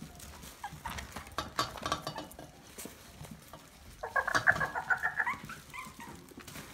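Maltese puppy whining in a quick run of short, high yips lasting about a second, starting about four seconds in. Scattered light clicks and taps come before it.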